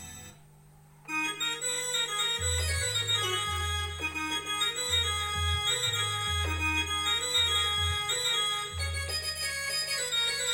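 Korg Kross 2 synthesizer playing an organ-like patch: after a brief pause about a second in, a melody line starts over low bass notes that come and go.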